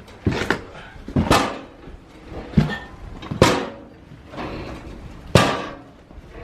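Heavy stair lift chair being moved, clunking and knocking hard about five times at uneven intervals of one to two seconds, each knock with a short ring.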